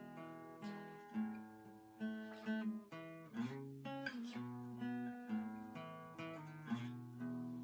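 Acoustic guitar being strummed, the chords ringing on between strums that come irregularly, about one or two a second, with the chord changing now and then.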